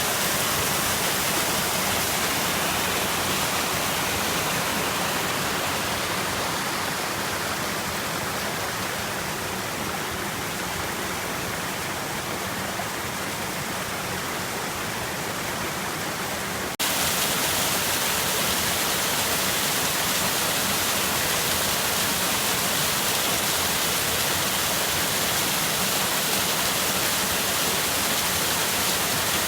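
Steady rush of falling water from a waterfall. About 17 seconds in it breaks off for an instant and comes back slightly louder and brighter.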